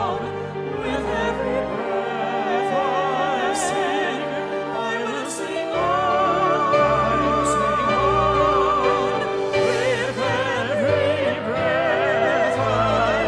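Classical-style background music with a melody of long vibrato notes, one note held for several seconds around the middle.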